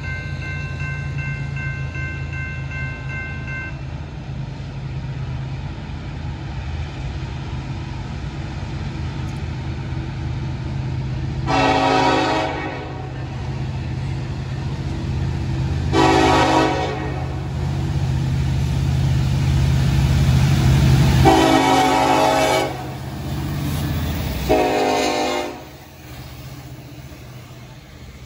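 Railroad crossing bell ringing for the first few seconds. Then a Norfolk Southern freight's diesel locomotives approach with a low, steady engine rumble that builds, and the lead locomotive sounds its multi-note air horn for the crossing in four blasts of about a second or a second and a half each.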